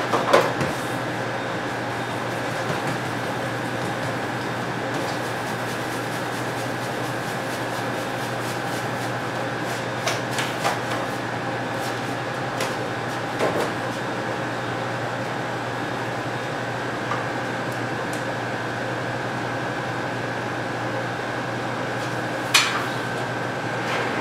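Steady hum of commercial kitchen machinery (ventilation and refrigeration) with a steady high whine over it, broken by a few scattered knocks and clatters from dough trays and utensils being handled on the stainless-steel counter.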